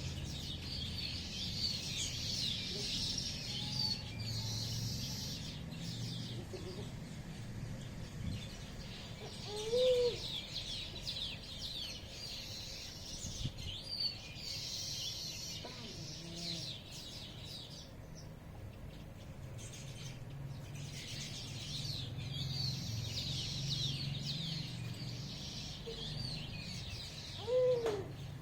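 Many small birds chirping rapidly in a busy chorus that comes in waves, swelling and fading several times. Two louder, short, lower-pitched calls stand out, one about ten seconds in and one near the end, over a faint low rumble.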